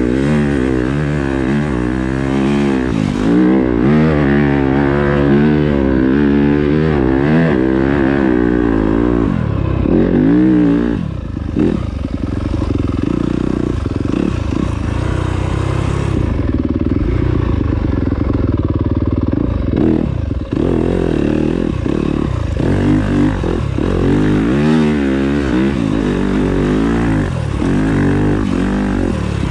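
2020 Yamaha YZ250FX's single-cylinder four-stroke engine revving up and down while being ridden, its pitch rising and falling repeatedly as the throttle opens and closes. The revs drop back briefly about 11 seconds in and again about 20 seconds in.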